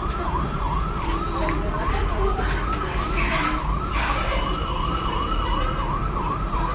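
Electronic siren-like warbling tone, sweeping up and down about three times a second without a break, over a low background rumble.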